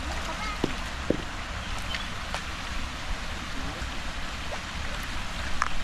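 Shallow stream water running steadily over rocks, with a few short knocks and splashes from people wading and turning over stones by hand.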